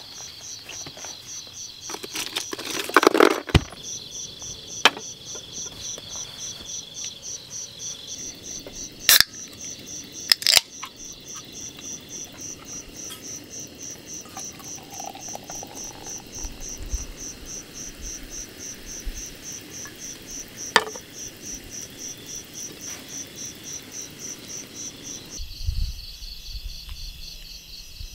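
Crickets chirping steadily in rapid, even pulses. A few sharp clicks and knocks cut through it, the loudest cluster about three seconds in and single ones about nine, ten and twenty-one seconds in.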